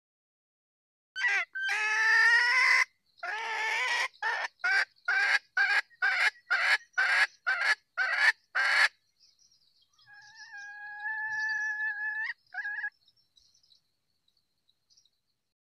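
Red junglefowl hen calling, used as a hunter's lure to draw junglefowl out of cover. It opens with a drawn-out call, then gives a run of about nine short clucks about half a second apart, and near the end holds one steady note followed by a short extra note. Faint high chirps sound underneath near the end.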